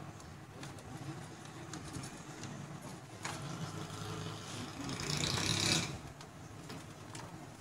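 Power cables and plastic connectors being worked loose inside an open desktop PC, with scattered clicks and rustling over a steady low hum. A louder rushing noise builds through the middle and peaks about two seconds later, then cuts off.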